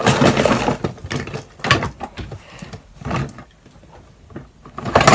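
Household things being moved about while someone rummages for a bowl: a few separate knocks and scrapes, the loudest at the start.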